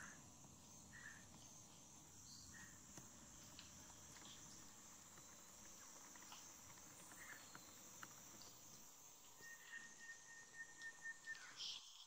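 Faint steady high-pitched insect chorus with scattered short bird chirps. Toward the end a bird holds one even whistled note for about two seconds, followed by a few quick, louder calls.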